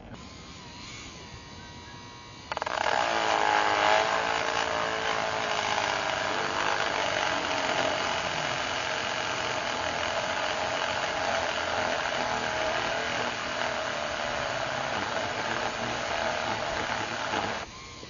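Dremel rotary tool with a sanding drum grinding a notch into a plastic engine cover, a steady high motor whine. It gets much louder about two and a half seconds in and drops back near the end.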